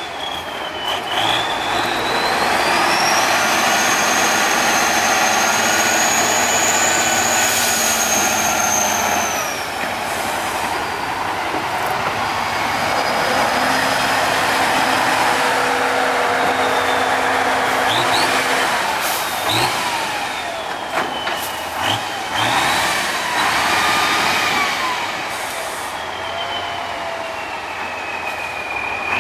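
Tatra 813 8x8 truck's air-cooled V12 diesel working hard on a steep sandy climb, revs rising and falling. A high whine climbs in the first few seconds, holds, then drops away about ten seconds in.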